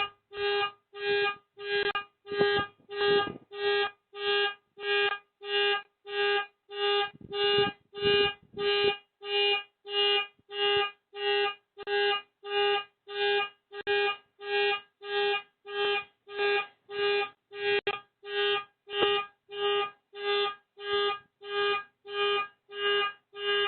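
Car alarm sounding in steady, evenly spaced pulses, about two a second, each on the same unchanging pitch. Heard through a Ring camera's microphone.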